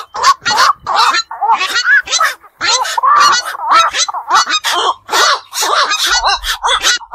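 Black-crowned night herons giving short, harsh calls in quick succession, about three a second.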